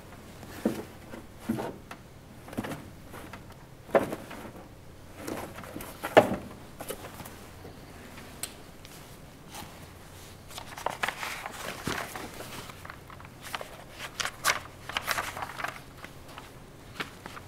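A few scattered knocks and clicks from a wooden office cabinet being handled, the loudest about six seconds in. From about two-thirds in, papers in a folder rustle and flip.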